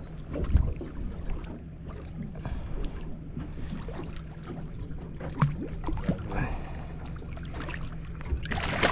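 Steady low hum of a boat's idling motor with small splashes and knocks. Near the end a louder rush of splashing as a golden trevally thrashes at the surface beside the landing net.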